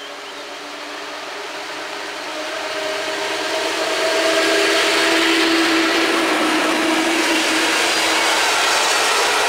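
PKP Intercity EP07 electric locomotive hauling a passenger train, approaching and passing at speed. The rush of wheels on rail grows louder over the first four seconds or so, with a humming note as the locomotive goes by, then the steady rolling of the coaches.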